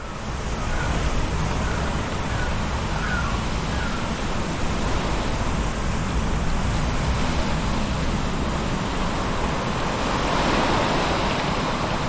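Sea surf washing over rocks: a steady rushing wash that swells a little about ten seconds in.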